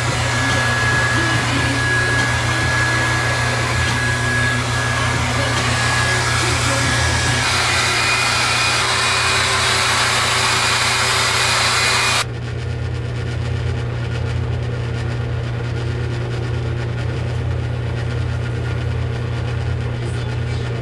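Hand-held hair dryer blowing steadily: a loud rush of air over a low motor hum with a faint high whine. About 12 seconds in the rush cuts out abruptly, leaving a quieter, duller hum.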